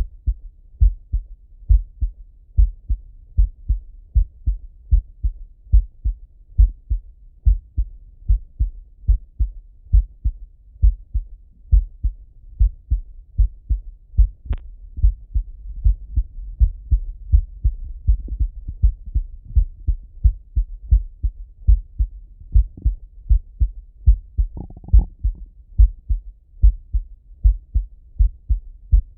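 A man's heartbeat heard through a Littmann stethoscope's bell: steady paired lub-dub thumps at about one beat a second.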